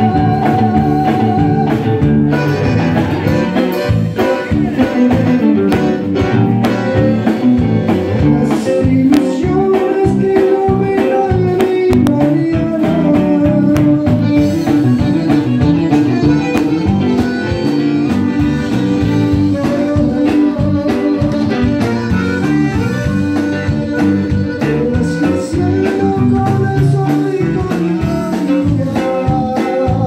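Live band playing, led by a button accordion holding sustained melody notes over electric bass, electric guitar and a drum kit keeping a steady beat.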